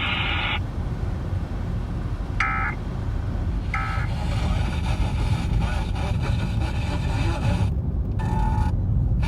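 Car radio playing the Emergency Alert System end-of-message: short buzzy data bursts, two about a second apart near the start and a third near the end. Under them are steady engine and road rumble and a hiss of static from a weak, distant FM signal.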